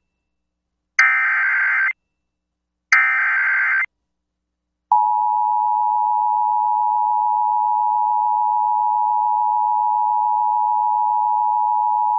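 Emergency Alert System SAME header: two one-second bursts of warbling digital data tones about a second apart. About a second later the steady two-tone EAS attention signal starts and holds, announcing an incoming severe thunderstorm warning.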